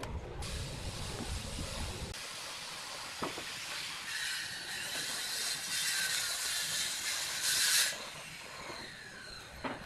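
A steady spraying hiss that starts abruptly, grows stronger about four seconds in and cuts off suddenly near the end, as when a finish is sprayed onto the stained wooden frame.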